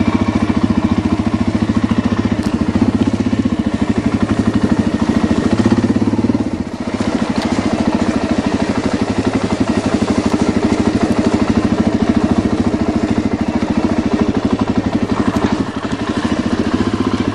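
A vehicle engine running steadily, dipping briefly about six and a half seconds in, then cutting off right at the end.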